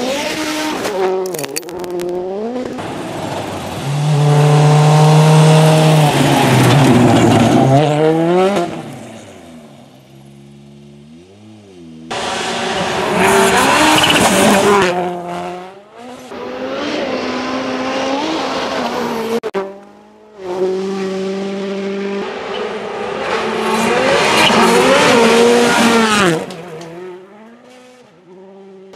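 Volkswagen Polo R WRC rally car's turbocharged four-cylinder engine at full throttle on gravel, revs climbing and dropping sharply through fast gear changes, with gravel noise from the tyres. It passes several times, each pass swelling and fading, some cut off suddenly.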